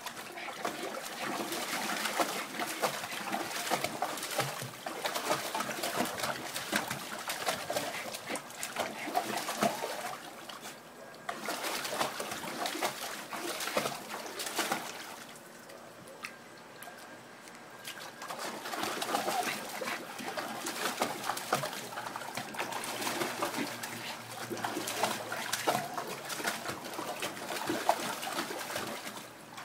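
Water splashing and sloshing in a small plastic kiddie pool as two dogs wade and paddle about in it, with a quieter lull about halfway through.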